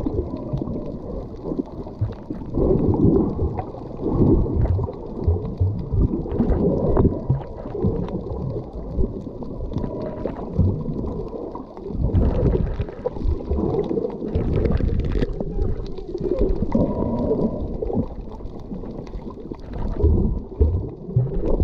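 Muffled underwater sound of a submerged camera: water surging and gurgling against the housing in low, irregular swells as the snorkeler swims.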